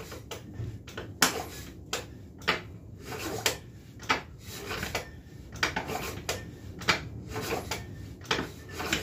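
Irregular light metallic clicks and clanks, about one or two a second, from hands working on a 150cc ATV engine.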